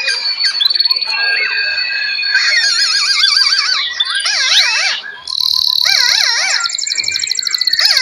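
Many songbirds singing and calling at once: overlapping clear whistles, short warbling phrases and fast, wavering trills, with a high rapid trill near the end.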